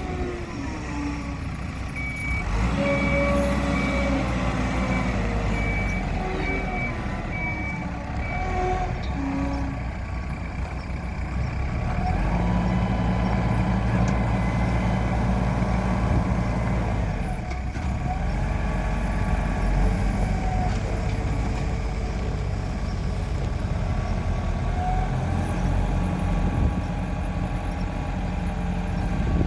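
Diesel engine of a 2005 Mecalac 12MXT wheeled excavator running and rising and falling in revs as it works under load. A regular high-pitched travel alarm beeps for several seconds near the start.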